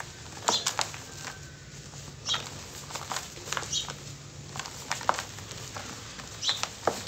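Dry cement lumps crushed and crumbled in bare hands, making irregular gritty crunches and crackles, with the loose powder sifting down into a plastic basin.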